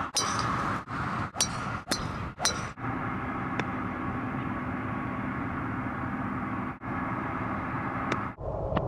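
A run of sharp clicks about half a second apart over the first three seconds, then a steady outdoor background of hiss with a low hum.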